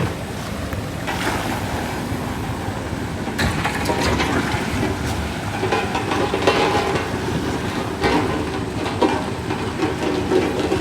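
Heavy diesel engine running with a steady low rumble and clattering, typical of a truck or heavy road machinery working the slope.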